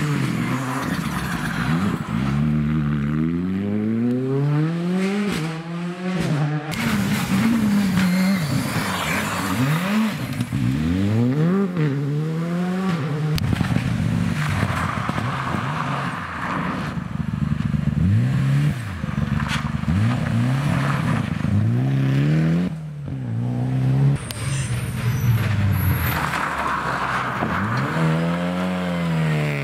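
Rally cars, among them a Ford Fiesta, a Mitsubishi Lancer Evolution and a Renault Clio, accelerating hard through a corner one after another. Each engine revs up and drops back sharply at every gear change. The tyres scrabble as a car slides wide.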